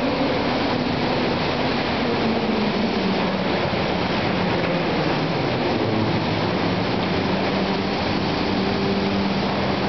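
Steady industrial roar of a steel mill bay with an overhead slab crane working. A low motor hum runs under the roar, dipping slightly in pitch about two to three seconds in and then holding steady.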